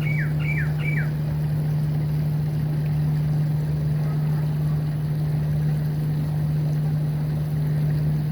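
Steady splashing, running-water noise under a constant low hum, with three quick descending chirps from a small bird in the first second.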